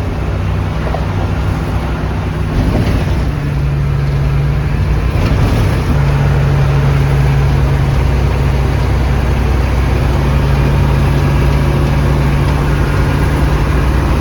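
Vehicle engine and road noise while driving, a steady low drone whose pitch steps up slightly twice, a few seconds in and about six seconds in.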